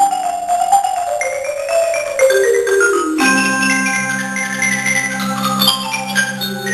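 Mallet percussion quartet of marimba, bass marimba, xylophone and vibraphone playing. A quick run of struck notes falls in pitch over the first three seconds. About three seconds in, low bass-marimba notes and fuller chords come in and hold.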